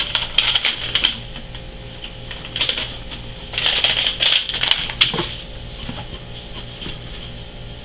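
Packing material rustling and crackling as a shipping box is unpacked by hand, in bursts at the start and again in the middle, over a steady low hum.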